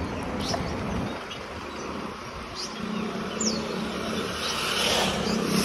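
Outdoor street traffic: a steady noise of passing vehicles, with an engine hum building from about halfway and a vehicle passing close near the end. A few short high chirps sound over it.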